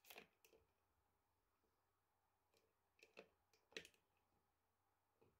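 Near silence, broken by a handful of faint clicks and rustles, the loudest about four seconds in, as PET filament is handled and pushed into a heated-wire filament splicer.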